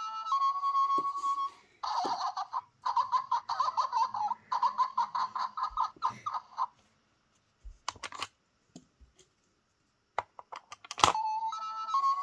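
Electronic beeps and a jingle from a BRIO World email central toy set: a steady beep that steps up in pitch, then a warbling, ringtone-like electronic tune for about five seconds. After a pause with a few clicks, a sharp click near the end sets off the same stepped beep again.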